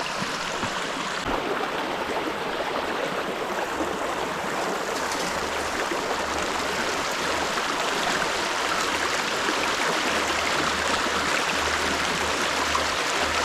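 Mountain stream flowing steadily over rocks, a continuous rushing and babbling of water.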